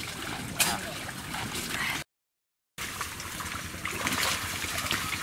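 Water sloshing and splashing as people wade and work by hand in shallow, muddy pond water, with one sharper splash about half a second in. The sound drops out completely for under a second about two seconds in.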